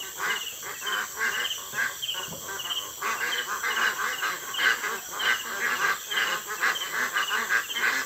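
A flock of farm ducks quacking in many short overlapping calls, louder from about three seconds in, over the steady chirping of crickets.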